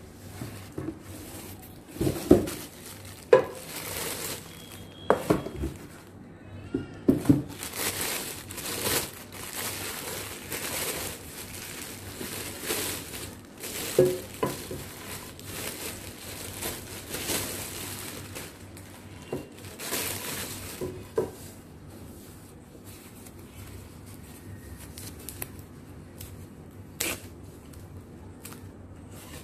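Plastic wrapping and a cardboard box rustling and crinkling as a stainless steel casserole is unpacked. Several short, louder sounds stand out in the first seven seconds and again about halfway through.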